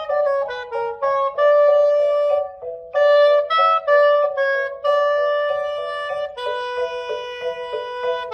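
Solo saxophone playing a melody one note at a time, with no accompaniment: a quick falling run of short notes in the first second, then a mix of short and longer held notes.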